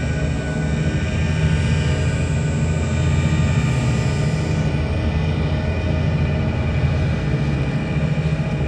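Dark ambient soundtrack: a steady low rumbling drone with many held tones layered above it.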